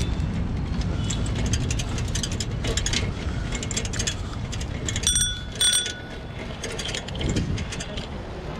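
Bicycle bell rung twice in quick succession, about five seconds in. Under it the bike's wire basket and frame rattle over the path, with wind on the microphone.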